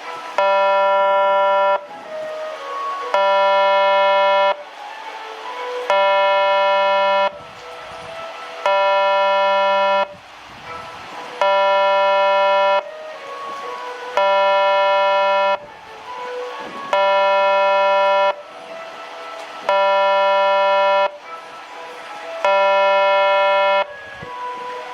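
Station train-approach warning buzzer sounding in steady, evenly repeated blasts, each about a second and a half long with a pause of about the same length, warning that a train is approaching.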